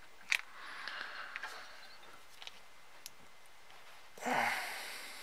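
Pliers clicking and scraping against the small pump's brass fitting as it is worked to pop a part off, with a sharp click about a third of a second in. A louder short burst of breathy noise comes near the end.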